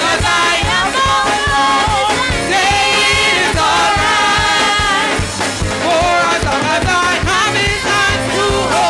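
Live gospel praise and worship song: singers on microphones over a band, with a drum kit keeping a steady beat.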